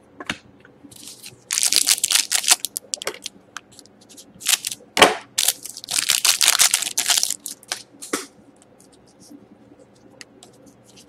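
A foil trading-card pack of 2011-12 Titanium hockey cards crinkling and being torn open in the hands, with sharp cracks of the foil about four to five seconds in. A longer stretch of crinkling follows, then faint ticks as the cards are handled.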